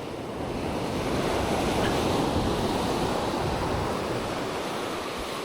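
Ocean surf on a beach: a wave breaks and washes in, swelling about a second in and easing off toward the end, with wind buffeting the microphone.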